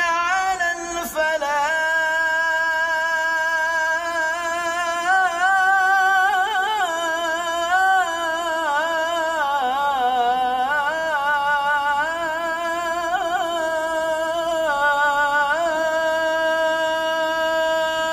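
A man's voice chanting the Islamic call to prayer (azan) in maqam Nahawand, one long melismatic phrase. The note is held and ornamented with wavering turns, dips lower around the middle, then climbs back and settles on a long held note near the end.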